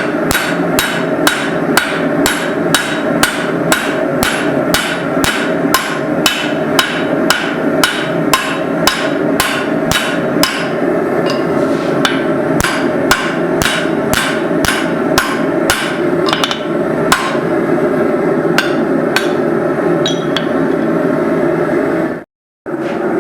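Straight-peen hand hammer striking hot steel on an anvil, pulling out the cheeks around the drift in a hammer head's eye, in a steady rhythm of about two blows a second that slows to scattered blows in the last few seconds. A steady hum runs underneath, and the sound cuts out briefly near the end.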